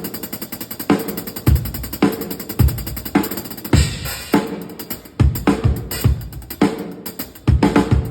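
Drum kit played during a sound check: a steady groove of bass drum and snare hits under quick hi-hat ticks.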